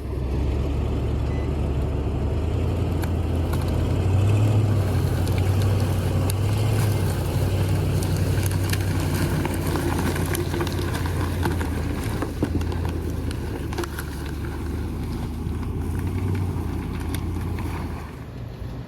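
Car engine running steadily under load, pulling a log on a rope, with scattered clicks and crackles over it. It starts abruptly and drops off slightly near the end.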